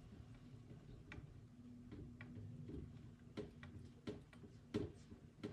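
Faint, irregular light clicks and taps, sharper and closer together in the second half, over a low steady hum.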